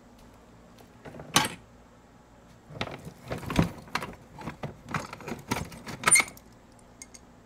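Rummaging through a plastic bin of cables and salvaged electrical parts: a sharp clatter about a second and a half in, then a run of rattles, clicks and clunks as the parts are shifted about, the loudest near the end.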